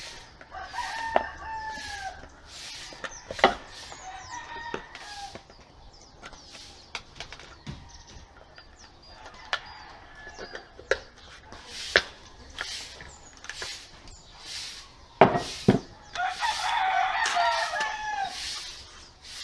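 A rooster crowing several times, the longest and loudest crow near the end. Sharp knocks and clicks of wooden drawer pieces being handled sound between the crows.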